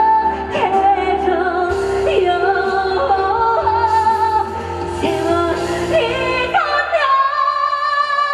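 Live ballad: a female singer's voice carries a wavering melody over band accompaniment. About six and a half seconds in, the bass drops away and she holds one long high note.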